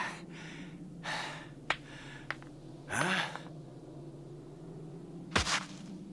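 A dubbed cartoon voice gasping and breathing hard, three strained breaths about one, three and five and a half seconds in, with a low steady hum underneath.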